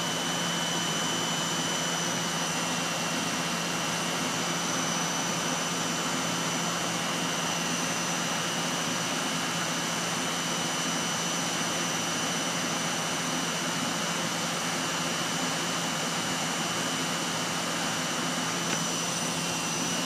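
Outdoor air-conditioning condensing unit running steadily: a constant rush of air from the condenser fan over a low hum, with a faint high whine, while the system runs under gauges for a refrigerant charge check.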